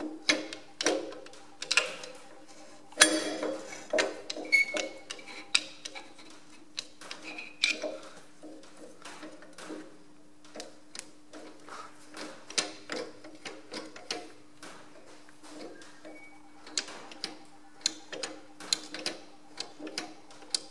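Irregular metal clicks and knocks from a Ferguson FE35 tractor's top-link rocker and draft control spring being rocked back and forth by hand. The knocking is the sign of a little end play still left in the draft spring adjustment. A steady low hum runs underneath.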